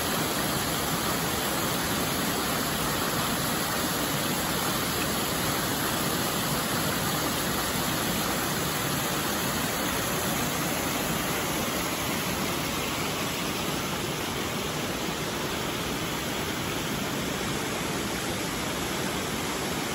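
Steady rush of a small creek waterfall cascading over rock ledges.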